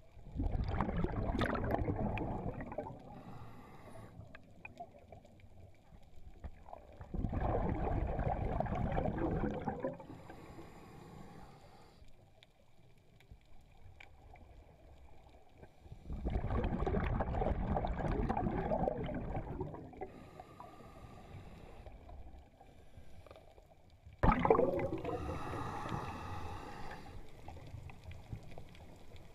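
Underwater breathing through a scuba regulator: four loud rushes of exhaled bubbles, about every eight seconds and each lasting about three seconds, with faint gurgling and hiss between them.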